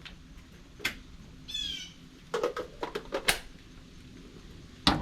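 A few sharp clicks and knocks from hand work on the PTAC unit as the compressor is being taken off, with one short high-pitched chirp about one and a half seconds in.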